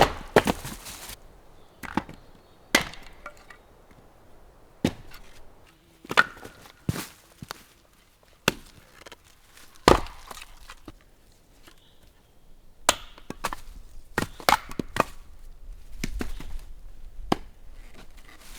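Wood being chopped with an axe: a dozen or more sharp, single strikes at an uneven pace, roughly one every second or two.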